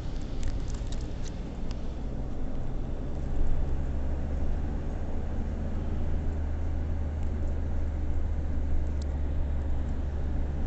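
Steady low rumble of a car driving, with a few faint clicks near the start.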